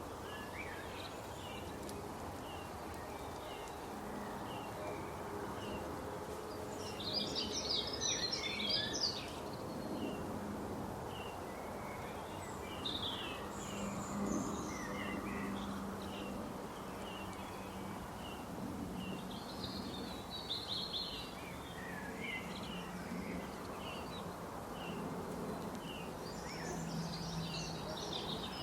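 Small birds chirping: one repeats a short chirp about once a second, while louder bursts of rapid twittering come in now and then, over a steady low hum.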